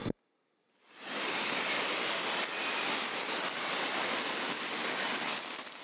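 Shortwave receiver tuned to 9855 kHz as the NHK relay transmitter signs off. A short thump, under a second of near silence, then about a second in the steady hiss and static of the empty frequency comes up and holds.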